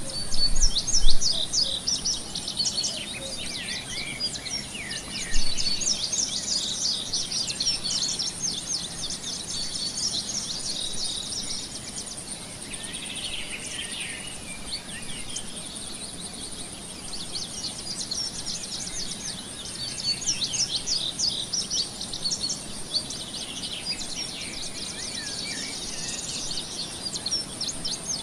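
Small birds chirping and singing, many quick high calls coming in bouts, over a faint steady high-pitched whine.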